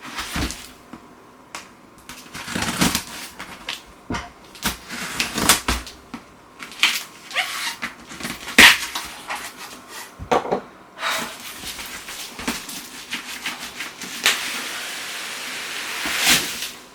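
Cardboard packaging being handled and pulled open: irregular rustles, scrapes and knocks, with a longer steady rasp of about two seconds near the end.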